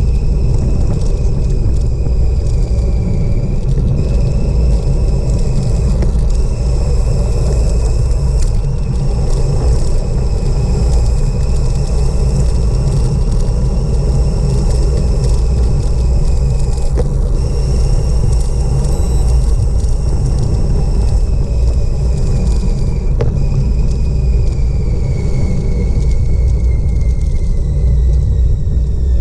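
Loud wind rush on an action camera's microphone as a bicycle descends at speed, heard as a steady low rumble. A thin high whistle runs through it, drifting slowly in pitch and falling near the end.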